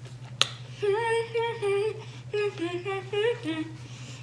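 A woman humming a slow tune, with held notes starting about a second in, over a steady low background hum. There is a single short click just before the humming begins.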